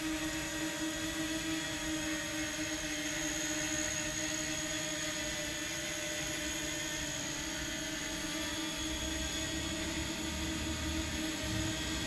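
izi Mini X quadcopter drone hovering, its spinning propellers giving a steady humming buzz that holds one even pitch.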